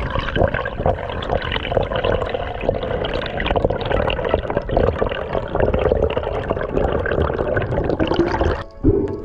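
Water heard underwater through a camera's housing: a dense, muffled sloshing and bubbling with many small clicks and crackles.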